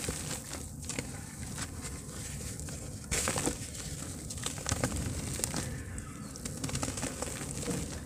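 Hands crumbling lumps of soft dirt, with gritty crackling and crumbs pattering down onto loose soil. There is one sharper, louder crunch about three seconds in as a lump breaks apart.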